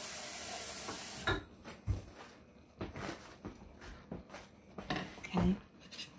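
Kitchen faucet running for about the first second, then shut off, followed by a utensil scraping and clinking in a saucepan as water is stirred into milk gravy.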